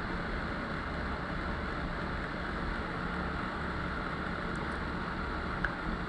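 Steady low hum and hiss of background noise, with a faint click near the end.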